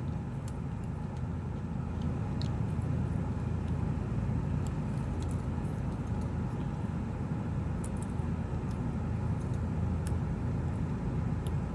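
Steady low background rumble with a few faint, scattered small clicks from ribbon-cable connectors and plastic clips inside a tablet being pressed into place.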